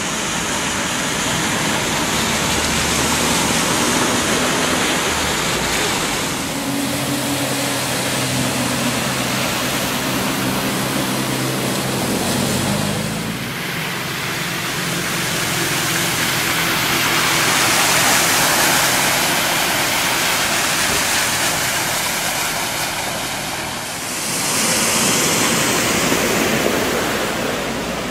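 Cars driving through deep floodwater, engines running and tyres throwing up splashing water, followed by a steady rush of floodwater running across the road.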